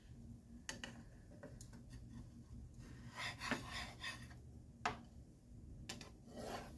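Plastic spatula scraping and tapping against a nonstick frying pan as it is worked under a grilled cheese sandwich: a few faint scrapes and clicks, the longest scrape about three seconds in and sharper clicks near five and six seconds.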